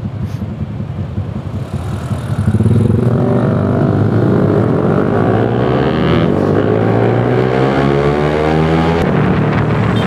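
Yamaha R15 V3's single-cylinder engine idling for a couple of seconds, then pulling away hard, its note climbing in pitch through the gears with a break at each upshift.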